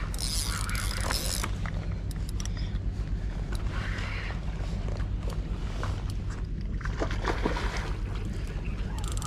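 Large spinning reel, a Shimano Beastmaster 10000, being cranked as line is wound in against a hooked fish, over a steady low hum, with a few sharp clicks near the end.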